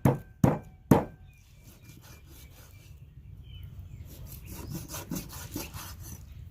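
A knife chopping pork on a wooden board, three heavy strokes about half a second apart in the first second. Then softer, repeated rubbing strokes of the blade slicing or scraping across the meat and board, getting a little louder near the end.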